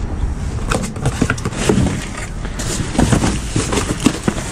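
Plastic trash bags and cardboard boxes rustling and crinkling in a run of short, irregular crackles as gloved hands shift them in a dumpster, over a steady low rumble.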